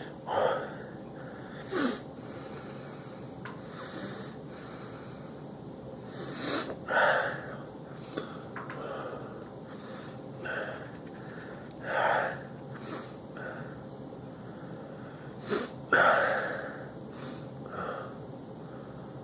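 A man sniffing and snorting hard through his nose, again and again at uneven gaps of one to a few seconds, drawing ground pepper up his nostrils to bring on a sneeze that does not come. The loudest sniff is near the end.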